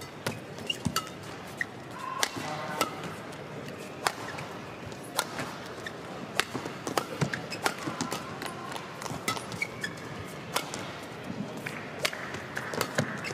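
Badminton rally: sharp cracks of rackets hitting the shuttlecock, irregular and about every second or so, with short squeaks of court shoes, over the steady background noise of a large arena hall.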